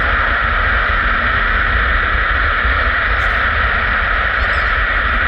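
Steady radio static hiss from an air traffic control feed between transmissions, with a low rumble underneath.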